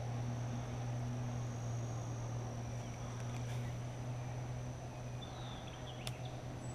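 Pond-side outdoor ambience: insects keep up a steady high drone, and a bird gives a few short chirps about five seconds in. Under this runs a steady low hum, with a couple of faint clicks.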